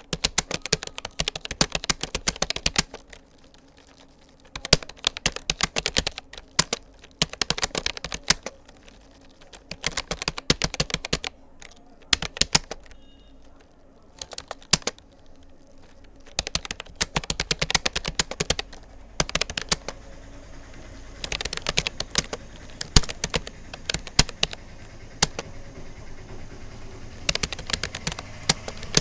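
Rapoo computer keyboard being touch-typed: quick runs of key clicks with short pauses between words and phrases.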